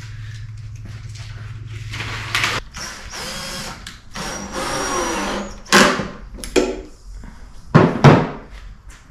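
Cordless drill driving screws into a wooden door in two runs of about a second and a half each, then several sharp knocks of hardware and wood being handled. A steady low hum is heard before the drilling.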